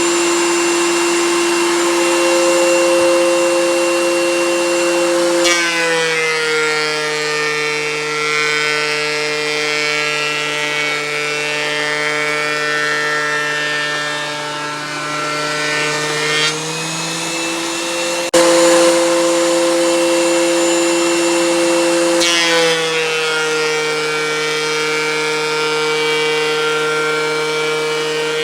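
DeWalt electric wood planer running with a steady, high motor whine. About five seconds in, the pitch drops and holds lower while the cutters take wood under load. It climbs back past the middle, with a sharp click, then drops again under load about two-thirds of the way through.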